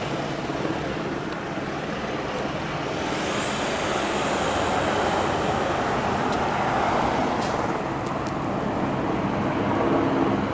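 Fire vehicles driving past on a street: engine and tyre noise of a fire engine pulling away and a Chevrolet Tahoe fire SUV passing close by. The noise swells as the SUV goes past in the middle, then eases off.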